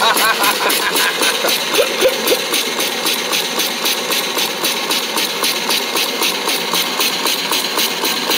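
Homemade single-cylinder steam engine with a 2-inch bore and 2-inch stroke, running on live steam at about 50 PSI. Its exhaust chuffs in a fast, even beat.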